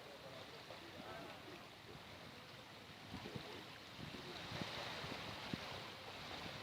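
Bay of Bengal surf washing onto a sandy beach, a steady rush of waves that swells louder about four seconds in. Faint voices can be heard under it.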